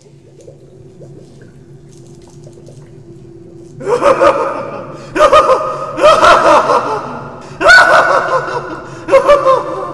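A low steady hum, then from about four seconds in a man's excited laughter in five loud bursts, with gasps between them.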